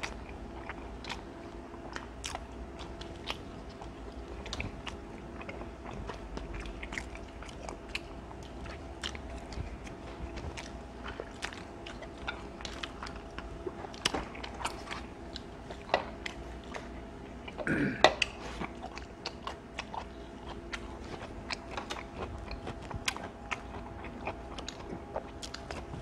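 Close-miked chewing of pizza crust: a steady run of small wet clicks and crunches from the mouth. About two-thirds of the way through comes a short throaty vocal sound, the loudest moment, and a low steady hum runs underneath.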